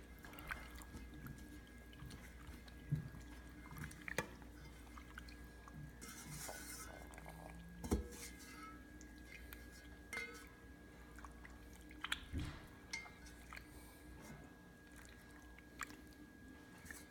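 Hands working freshly formed glue-and-borax slime in a bowl of borax water: faint wet handling sounds with scattered light knocks and clinks against the bowl.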